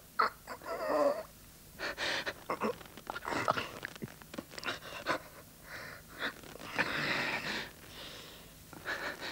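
Two men struggling hand to hand, heavy strained panting, wheezing and gasping with short grunts, with scattered scuffling knocks.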